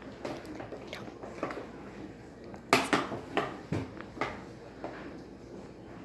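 A spoon knocking and scraping against a bowl while stirring a thick noodle-and-soup casserole mixture, with a cluster of louder clinks about three seconds in.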